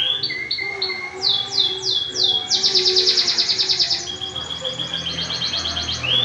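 Domestic canary singing a long rolled song: a few down-sweeping notes, then a fast high trill, then a lower, steady rolling trill. It is a long-roll song of the kind played to stir other canaries into singing.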